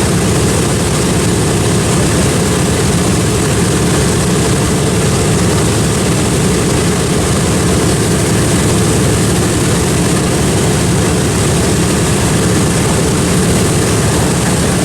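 Piston-engined propeller aircraft running loud and steady at close range, a constant heavy drone with no change in pitch.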